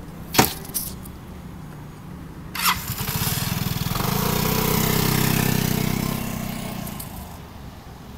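Vespa Primavera scooter engine picking up under throttle as the scooter pulls away at walking pace. It swells and then fades as the scooter rides off. A sharp click comes about half a second in.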